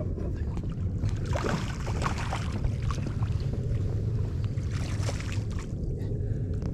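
Steady low rumble of wind buffeting the microphone, with faint scattered crackles about a second in and again near five seconds.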